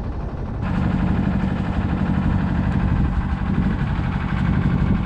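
An engine running steadily with a low hum. About half a second in, the sound steps up louder and fuller, then holds steady.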